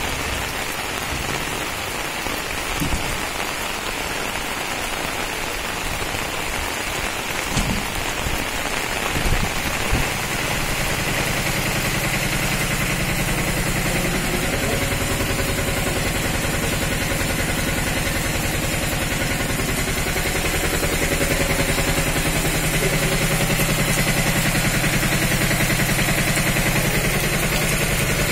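Heavy rain falling on wet ground and flood water, a steady noisy hiss with a few scattered thumps. About ten seconds in, the low hum of an idling vehicle engine joins and runs on under the rain.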